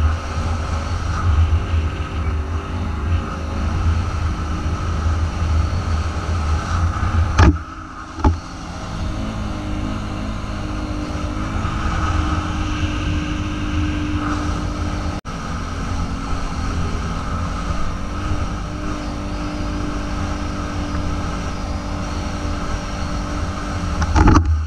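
Polaris Sportsman 550 ATV's single-cylinder four-stroke engine running steadily while riding. About a third of the way in there are two sharp knocks.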